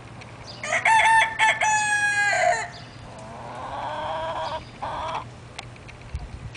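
Rooster crowing: a loud crow of a few short notes and a long held note that drops at the end, then a second, fainter crow about three and a half seconds in.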